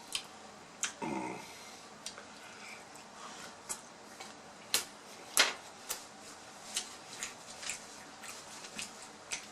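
Wet mouth clicks and lip smacks of a person chewing a sauced barbecue rib close to the microphone, irregular and spread through the whole stretch, with a brief hum about a second in.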